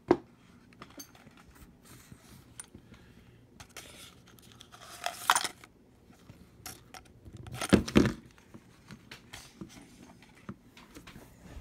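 Scattered handling sounds of unpacking: plastic packaging crinkling and rustling about five seconds in, and knocks as the box and lamp are handled and set down on a desk, the loudest a dull thump about eight seconds in.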